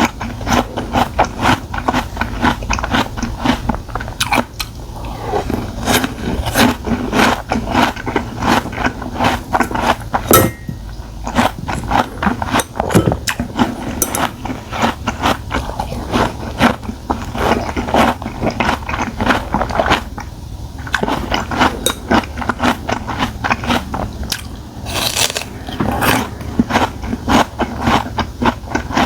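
A person chewing and biting food close to the microphone: a fast, dense run of mouth clicks that eases off briefly a few times.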